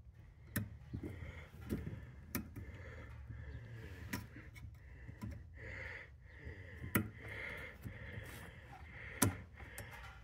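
Light, sharp metallic clicks and taps, about ten spread unevenly, from snap ring pliers and a snap ring being worked off an Indian Challenger motorcycle's rear brake pedal pivot.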